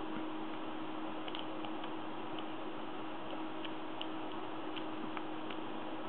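Faint, irregular small metallic clicks of lock picks working the pins of an AZBE HS6 lock cylinder, heard over a steady hiss. The clicks start a little over a second in, as the rear pins, which have barrel-type security drivers, are being picked.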